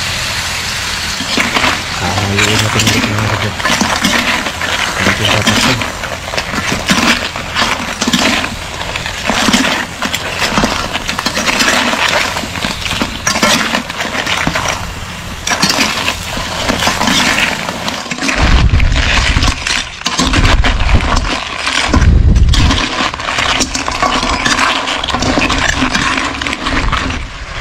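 Metal utensils and a cooking pot clinking and clattering over and over, with crab shells knocking about, as sautéed crab is cooked and dished up. A few heavy low rumbles come roughly two-thirds of the way through.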